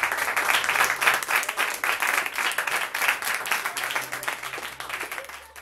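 Small audience applauding steadily, fading out near the end.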